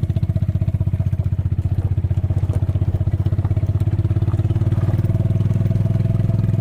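John Deere 1023E compact tractor's three-cylinder diesel engine running steadily with an even, fast throb.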